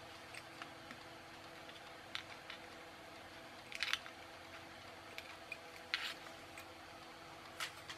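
Side cutters snipping off the excess component leads on a circuit board: a scatter of sharp clicks, the loudest about four and six seconds in.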